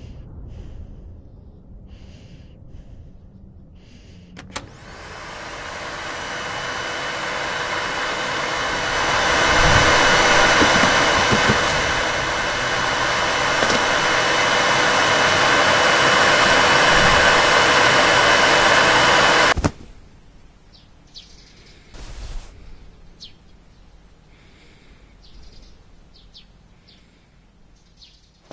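Vacuum cleaner switched on, its motor running with a steady whine in the noise, growing louder for a few seconds, then cut off suddenly about two-thirds of the way through.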